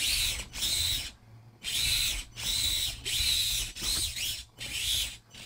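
Axial SCX24 mini crawler's stock brushed motor and gear drivetrain, fitted with underdrive axle gears, whining in about six short throttle bursts as the truck drives back and forth. Each burst rises and falls in pitch.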